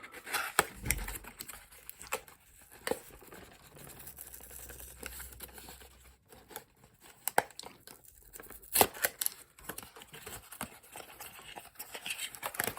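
Cardboard box and packaging being opened and handled: irregular tearing, crinkling rustles and sharp clicks, the loudest a snap about nine seconds in.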